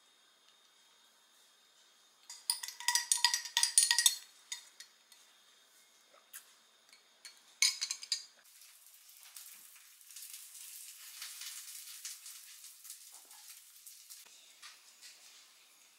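Ice and a glass straw clinking and ringing against a glass of iced coffee as it is stirred. There is a long burst of clinks, then a shorter one about eight seconds in. After that comes a few seconds of soft sipping through the straw.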